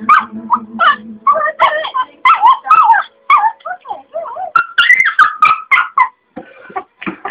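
Small terrier yipping and whining in rapid, frantic bursts, with a low growl in the first second or so, worked up at being unable to get a ball out of a sleeping bag.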